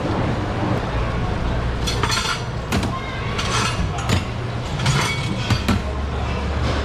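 Steel knives clinking and scraping against a stainless steel counter in several short clattering bursts, over a steady low hum.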